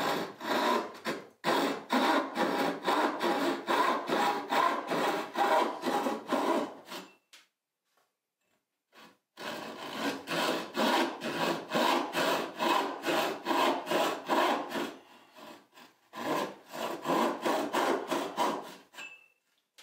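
Homemade cross-cut frame saw cutting angled dovetail pin cuts into the end of a wooden board, in quick, even back-and-forth strokes. The sawing stops twice, for about two seconds around 7 s in and briefly around 15 s in, then resumes.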